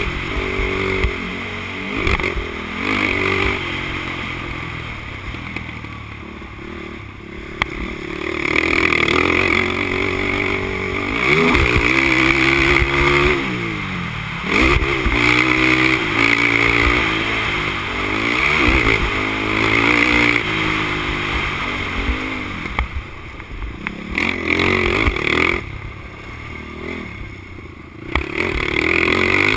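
Honda TRX450R quad's single-cylinder four-stroke engine under race throttle. Its note rises and falls over and over as the throttle is opened and shut, with two longer spells of lower, quieter running.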